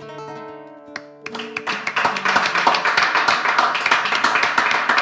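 The last notes of a nylon-string acoustic guitar fading out, then applause with hand clapping breaking out about a second in and carrying on loudly.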